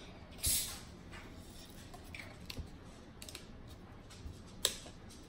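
Small plastic bottle of black raspberry drink being opened by hand: a short rush of noise about half a second in, then small scattered clicks of the cap and seal, and a sharper click near the end.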